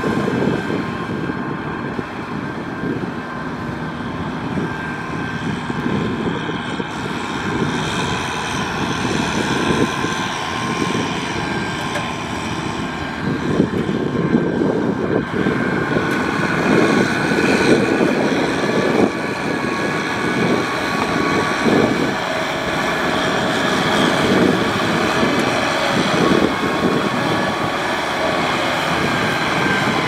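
Diesel engines of a Kubota tractor hauling a loaded trailer and a Kubota DC-70 combine harvester running steadily together. The sound grows a little louder about halfway through.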